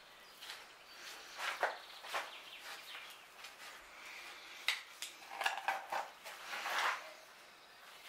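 A spreader scraping filler paste out of a plastic tub and smearing it onto a wooden keel timber: irregular short scrapes and light clicks, busier in the second half.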